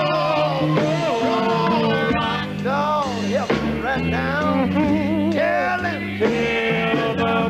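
Gospel quartet singing with band accompaniment: several voices, one of them with a wavering vibrato, over steady bass and guitar notes.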